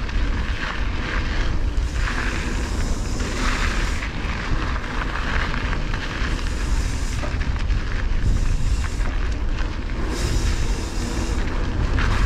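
Wind noise buffeting the microphone of a mountain biker's body-mounted camera, heard as a strong low rumble, while the bike's tyres roll and crunch over a loose dirt and gravel trail.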